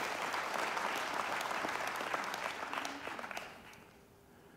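Large congregation applauding, the clapping dying away about three and a half seconds in.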